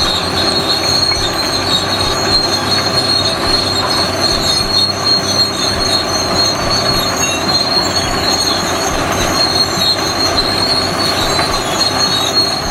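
Heavy machinery running with a steady, loud, high-pitched metallic squeal over a dense mechanical clatter and rumble.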